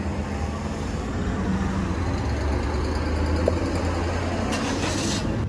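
Steady rumble and hiss of road traffic, with a brief brighter hiss near the end.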